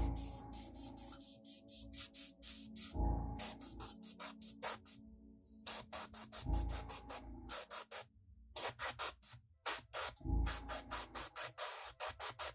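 Background electronic music with a steady beat: a deep hit about every three and a half seconds, held tones, and quick bright ticks in between.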